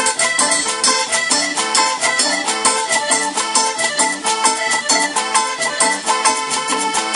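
Live tropical dance band playing, with a fast, even percussion beat under a melody. The sound is thin in the bass.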